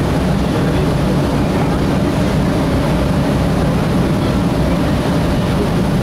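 A passenger boat's engine running steadily under way, a constant low drone mixed with the rush of water from its wake.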